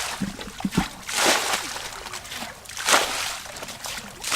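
Water splashing and sloshing in repeated surges about every second and a half, typical of hands or a basin working through shallow water while catching fish by hand, with a few soft knocks in the first second.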